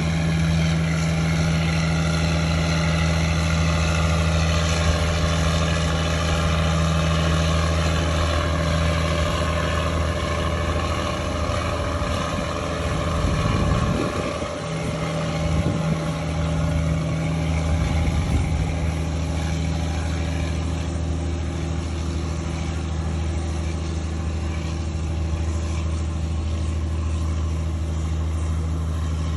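Fishing boat's engine running steadily, a low, even drone. A few brief rumbling bumps come about halfway through.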